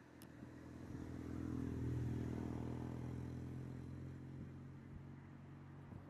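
A motor vehicle's engine passing by, rising to its loudest about two seconds in and then slowly fading away.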